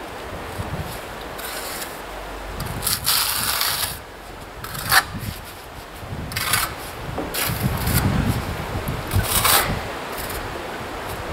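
Irregular scraping and rubbing strokes of a hand trowel working mortar or adhesive on a wall. A few short, sharper scrapes stand out.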